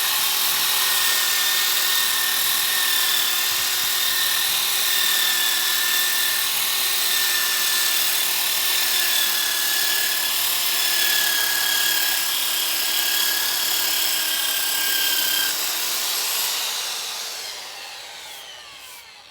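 Power tool spinning a 125 mm 120-grit sanding disc against a wooden tabletop, a steady high whine over the rasp of sanding. About fifteen seconds in the motor is switched off and winds down, its pitch and loudness falling away.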